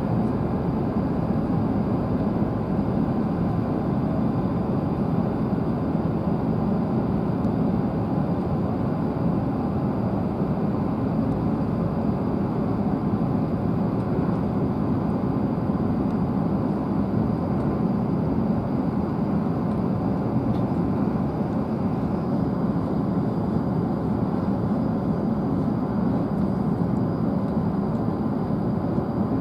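Steady interior running noise of a W7 series Shinkansen train at speed, an even rumble from the wheels on the track with air rush, heard inside the passenger cabin.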